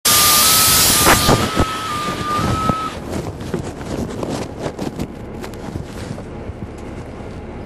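Cabin sound aboard a NABI 416.15 (40-SFW) transit bus with a Caterpillar C13 engine. A loud hiss lasts about a second and fades, while a steady high beeping tone runs until about three seconds in. After that come scattered rattles and knocks over a quieter running noise.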